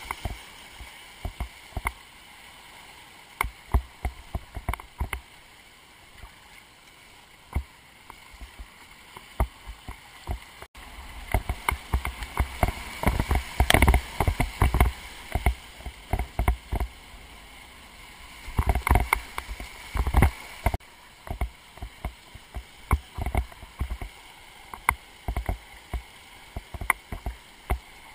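Whitewater rapids rushing around a kayak, with many sharp splashes and knocks close to the boat. The splashes come thickest in two bunches, about halfway through and about two-thirds of the way through.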